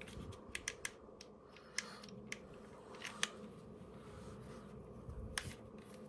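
Scattered light clicks and snips of hand work with small pieces of cardboard being fitted as spacers behind the buttons of a dishwasher control panel, coming at irregular moments.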